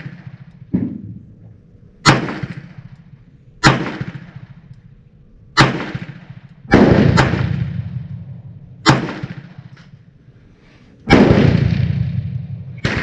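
Enfield No2 Mk1** revolver firing handloaded .38 S&W rounds with a heavily crimped bullet: about six sharp shots, one to two seconds apart, each trailing off in a long echo.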